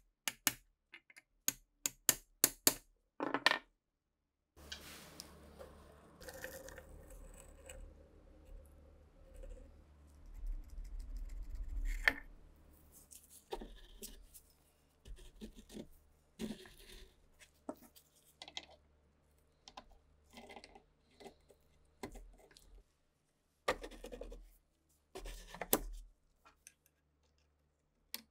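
Hand tools on the rusted steel parts of a STEN Mk2 submachine gun. A quick run of sharp metallic taps comes first, then irregular scraping, clinks and clicks as the rusted parts are worked and handled, over a low steady hum.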